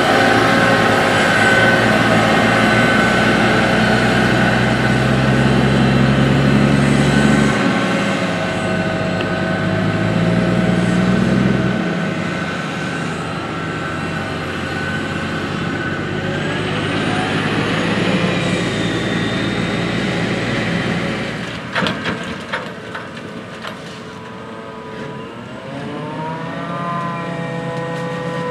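John Deere 9600i self-propelled forage harvester running under load while chopping corn: a steady engine sound with a high mechanical whine over it, and a deep drone in the first several seconds. Near the end the whine slides down and back up in pitch.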